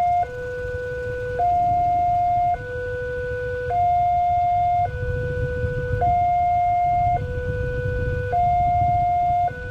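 Railway level-crossing warning alarm sounding its two-tone electronic signal, a lower and a higher tone taking turns, each held just over a second, warning that a train is approaching with the barrier down. A low rumble of road traffic runs underneath.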